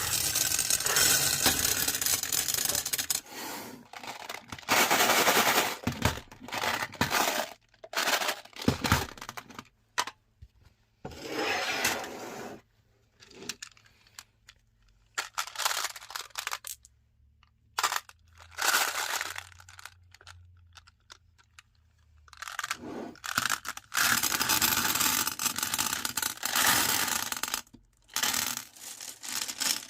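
Meat grinder chewing on glass marbles: irregular bursts of rattling, scraping and cracking as the marbles are crushed, with short quieter gaps where the grinder's motor hum is left.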